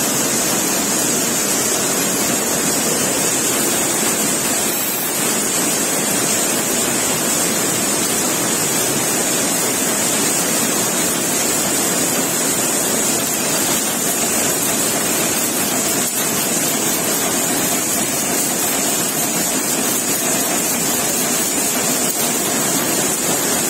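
Weaving looms running: a loud, steady mill din with a high hiss on top, without let-up.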